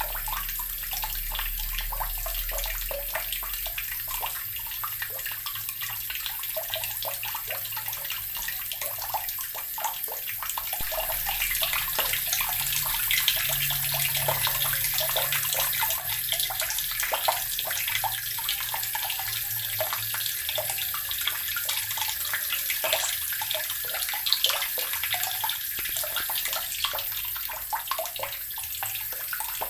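Water running steadily from a tap, splashing into the basin below.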